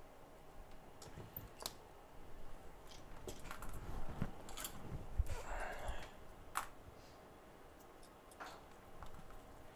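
Scattered clicks, taps and light knocks of tools and small hardware being handled and set down on a workbench mat, busiest in the middle, with a brief rustle.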